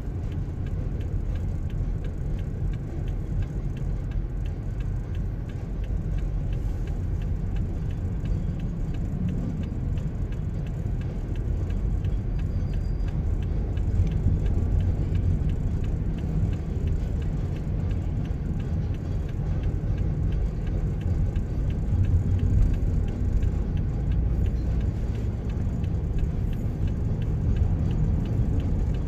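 Steady low rumble of a car driving in traffic, engine and road noise heard from inside the cabin.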